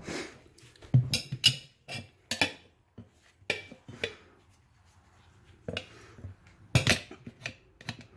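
Metal tire spoons clinking and knocking against each other and the wheel rim while prying a small mower tire's bead off the wheel: a string of separate sharp clanks, the loudest near the end.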